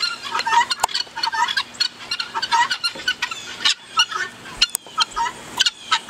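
A flock of helmeted guineafowl calling, several birds at once: a dense, continuous run of short, harsh, repeated calls.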